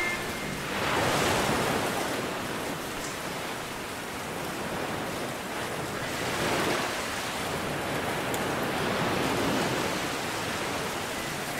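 Ocean surf: waves washing in and drawing back, swelling and easing every few seconds.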